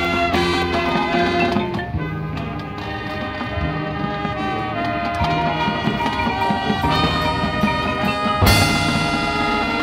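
High school marching band playing live: brass holds sustained chords over percussion. About eight and a half seconds in, the full band comes in louder on a sharp accent.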